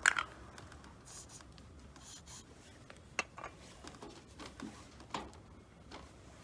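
Handling noises: a sharp click near the start, then scattered rubbing and scraping with a few more clicks about three and five seconds in.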